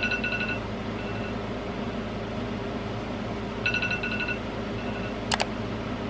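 Wake-up alarm beeping: bursts of about five quick high beeps, repeating every few seconds over a steady low hum. A single sharp click comes near the end.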